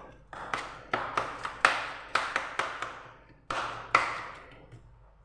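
Hands mixing ground vegetables with oil, tomato paste and spices in a baking tray: an irregular run of slaps and taps, loudest about a second and a half in and again near four seconds.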